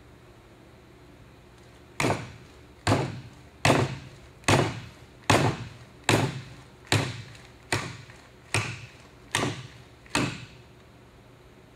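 An avionics display unit's case used as a hammer, striking a nail and driving it into a wooden beam: eleven sharp strikes at a steady pace of about one every 0.8 seconds, beginning about two seconds in.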